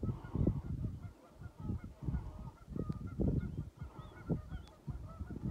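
Geese honking, a series of short calls that rise and fall, over uneven low rumbling that comes and goes.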